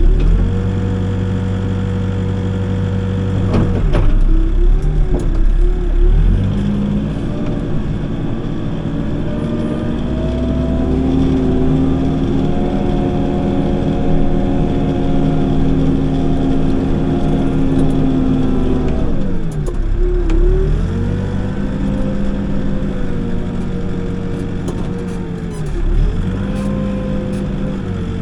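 Backhoe's diesel engine running at working speed while digging. Its pitch sags and recovers several times as the hydraulics take load, with a sharp knock about four seconds in.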